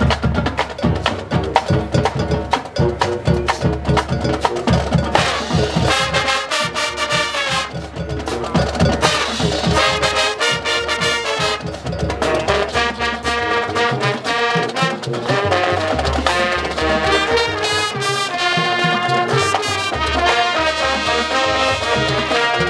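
High school marching band playing its field show: brass and drumline. Drum strikes dominate the first few seconds, then full sustained brass chords take over.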